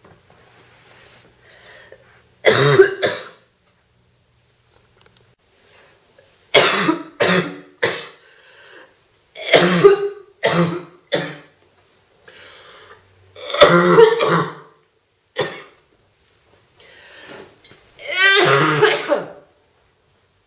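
A woman coughing in repeated fits: a sharp double cough about two and a half seconds in, then bursts of two or three coughs every few seconds, and one longer, rougher cough near the end, with faint breaths between. A heavy, deep, chesty cough from a bad cold.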